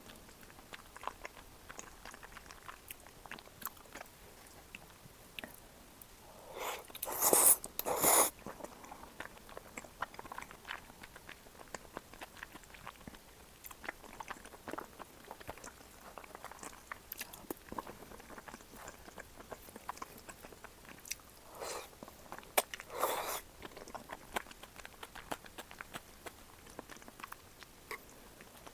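Close-miked eating: soft chewing and small mouth clicks, with two louder crunchy bursts, about seven seconds in and again about twenty-two seconds in.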